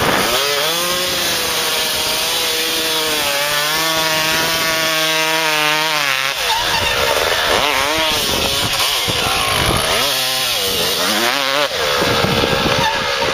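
Dirt bike engine revving hard while the rear tyre spins in loose dirt and throws up a roost. The revs hold at a steady pitch for the first few seconds, then rise and fall repeatedly.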